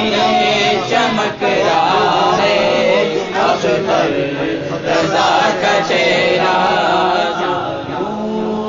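A man singing a manqabat, an Urdu devotional praise poem, in a slow chanting style.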